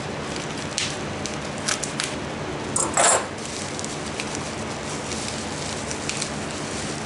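Egg packaging wrap being cut with scissors and handled: scattered short crinkles and snips, the loudest about three seconds in, over a steady background hiss.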